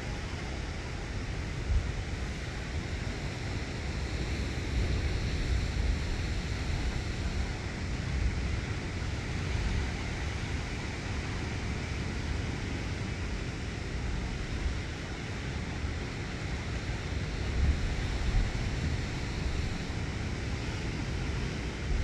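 Sea surf breaking and washing around rocks below a cliff, a steady rush of water, with wind buffeting the microphone in uneven low gusts.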